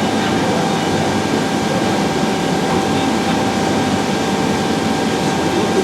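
Leadwell V-60iT 5-axis CNC machining centre running: a steady mechanical hum and rush with a constant whine.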